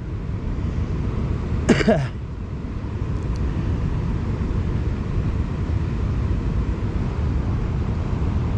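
Steady rushing noise of fast-flowing river water below a dam spillway, with wind on the microphone. A short voice-like sound cuts in about two seconds in.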